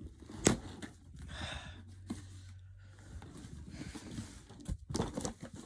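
Packing tape being picked at and pulled on a cardboard box: a sharp click, a short rasping peel, then a few clicks and knocks near the end.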